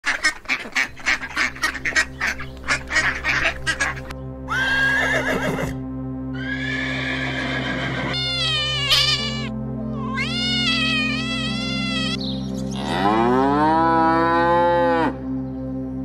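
A run of farm animal calls over steady background music: rapid duck quacking at first, then several separate drawn-out calls, and a cow mooing near the end.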